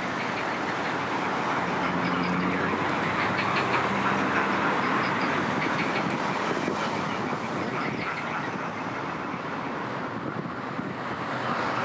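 Recorded road-traffic noise played back through a loudspeaker at about 75 decibels, a steady rush of passing vehicles laid over a recording of pond sounds.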